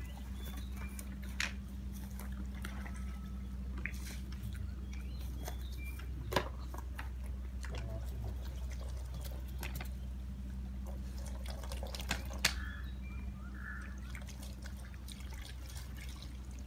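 Dogs drinking water, with wet lapping and dripping sounds, a few sharp clicks, and a steady low hum underneath.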